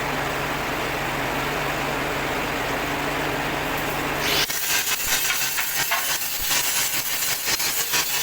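An engine running steadily with a low hum. About four seconds in the sound changes abruptly to a loud hiss with dense rapid crackling.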